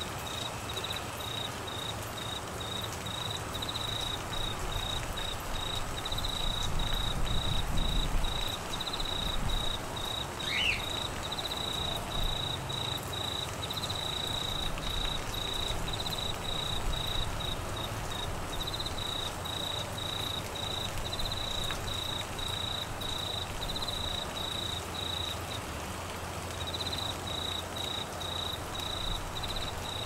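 Steady rain hiss with an insect chirping at a high pitch in rapid pulses, pausing briefly near the end. A single short rising chirp about a third of the way in.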